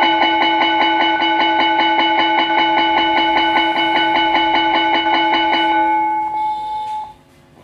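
School bell rung by an automatic bell timer: a metal gong struck rapidly, about five strokes a second, for about six seconds, then ringing out briefly after the strokes stop. It is the bell signalling the end of the lunch break.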